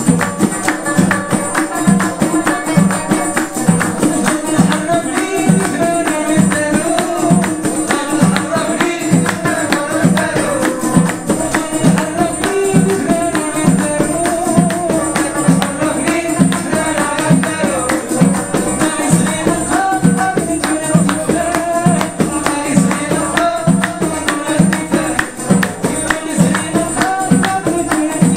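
Live folk music: a frame drum beating a steady, even rhythm under a banjo and electronic keyboard playing the melody, with hand clapping along.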